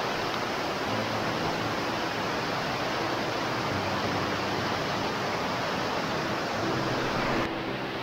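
Water rushing down a rocky stream below a waterfall: a steady, even rush. Near the end the sound suddenly turns duller and a little softer.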